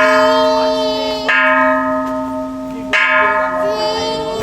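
Kansho, a Japanese Buddhist temple bell, struck twice about a second and a half apart. Each stroke rings on in several steady tones, and the ringing from a stroke just before is still sounding when the first of them lands.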